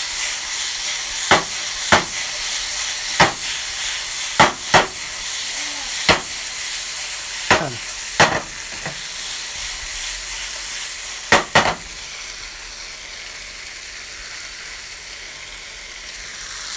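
Sliced steak sizzling in a nonstick frying pan, a steady hiss. About ten sharp clicks come at uneven intervals over the first twelve seconds, and the sizzle softens after that.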